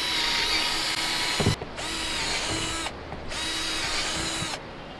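Power drill with a large bit boring drainage holes through the bottom of a plastic storage bin, running in several stretches with short pauses between.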